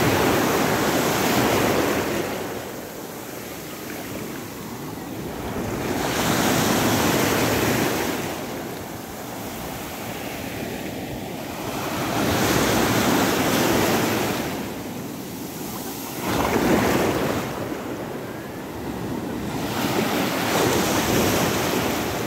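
Small sea waves breaking and washing over a pebble beach, the surf swelling and falling back five times, roughly every four to six seconds.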